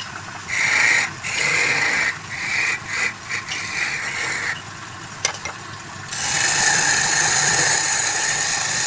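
Woodturning lathe with a tool working the spinning workpiece: several short scraping passes, then a louder, steady scrape from about six seconds in.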